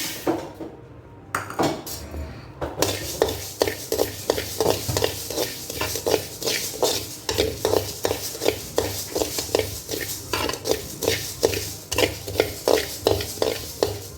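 Whole coriander seeds being dry-roasted in a kadai, stirred with a spoon: the seeds rattle and the spoon scrapes the pan in quick repeated strokes, about two a second, starting about three seconds in after a single knock.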